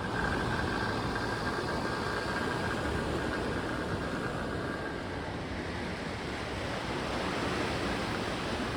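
Sea surf washing steadily onto a beach: a continuous rush of breaking waves.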